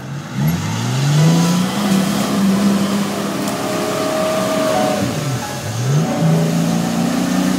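Jeep Cherokee engine revving hard under load while the truck pushes through a flooded mud ditch, with water sloshing against it. The revs climb sharply about half a second in and hold high. They drop briefly about five seconds in, then climb again.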